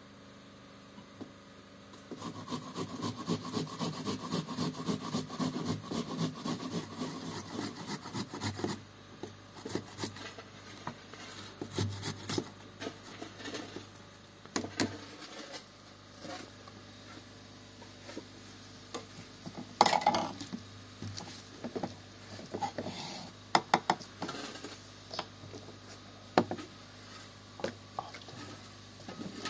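Hand food preparation with kitchen utensils: a fast run of scraping strokes lasting about six seconds, then scattered knocks and clinks of utensils and dishes, the loudest a sharp knock about two-thirds of the way in.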